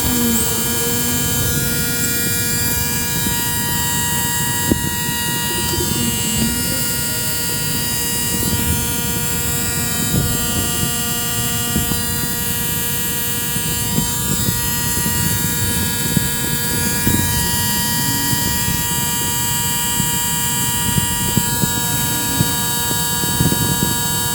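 Spray gun hissing steadily as it lays on a coat of NC primer, over the even hum of an air compressor's motor.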